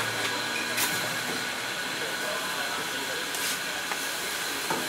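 Roti bom frying in oil on a hot flat griddle, sizzling with a steady hiss. A few short clicks of a metal spatula against the griddle as the breads are turned and pushed.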